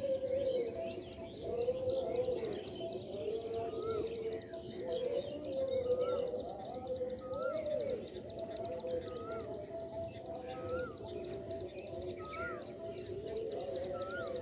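Birds calling over open farmland in the morning: a short, hooked call repeats about every second and a half from a few seconds in, over longer, lower, curving tones.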